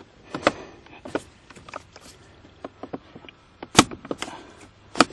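Plastic center console trim of a Toyota Corolla being handled and pressed back into place: a series of light clicks and knocks, with two sharper snaps near the end.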